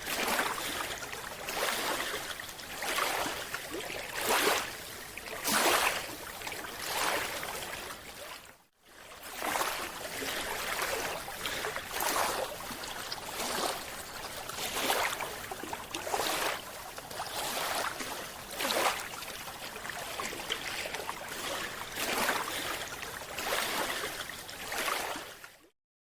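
Water sloshing and splashing, surging about once a second, with a brief break near the middle and a fade out at the end.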